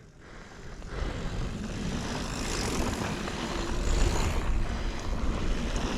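Mountain bike rolling down a dirt trail: wind rushing over the rider's camera microphone together with tyre noise, growing louder through the first second as the bike picks up speed, then holding steady.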